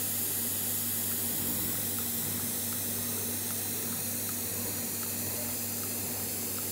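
Steady, loud machinery noise in a CNC workshop: a strong hiss with a low hum and a steady drone, and faint ticking about twice a second.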